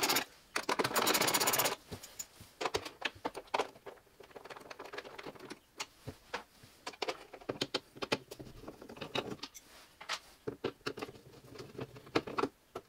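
Ratchet and socket clicking rapidly for about a second as sheet-metal screws are backed out of a refrigerator's plastic control housing. Scattered lighter clicks and ticks of tool work on the screws follow.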